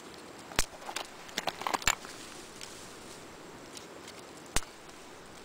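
Small fire of dry grass and twigs catching, with sharp crackles and snaps: one about half a second in, a quick run of them between one and two seconds, and one more near the end.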